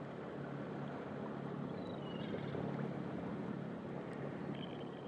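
Steady wash of wind and sea water at the shoreline, with a low steady hum underneath.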